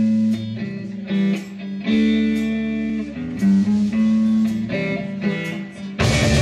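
Electric guitar picking a song's intro riff, single notes and chords with a bass line under it. The drums and full band come in near the end.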